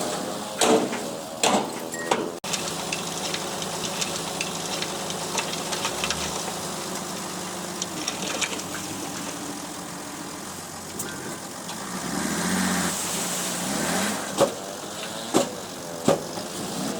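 Heavy earthmoving machine's engine running steadily, with sharp metallic clanks a few times near the start and again near the end, and a brief rise in engine sound about three quarters of the way through.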